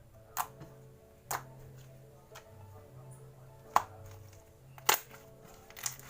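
Sky blue glittery glue slime being played with, giving five sharp popping clicks spread about a second apart, over soft background music.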